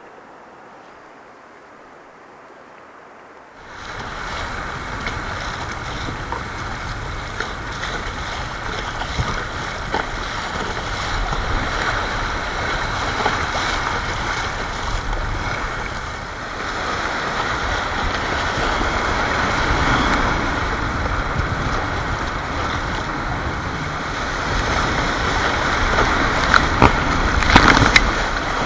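Rushing whitewater of a river rapid, heard from the bow of a kayak paddling through it. It sets in suddenly about three and a half seconds in, after a few seconds of quiet river sound, and grows louder, with sharper splashes near the end as waves break over the boat.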